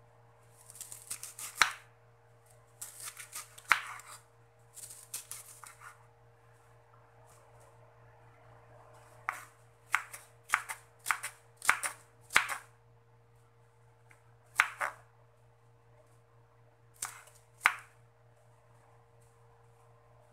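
Chef's knife cutting raw cabbage on a wooden cutting board. There are crunchy slicing strokes in short runs over the first six seconds, then single sharp knocks of the blade on the board: a quick run of about six in the middle, and a few more spaced out near the end.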